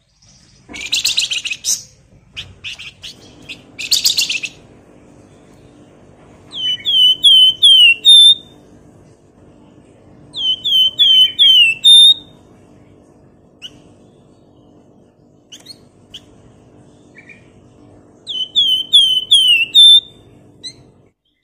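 Javan fulvetta (flamboyan) calling: two short harsh chattering bursts in the first few seconds, then three times a phrase of four quick falling whistles ending on a higher note. A faint low hum runs underneath.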